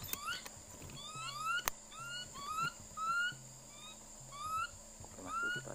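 Repeated short rising chirping calls, about two a second, from an animal or bird. A single sharp click comes about a second and a half in.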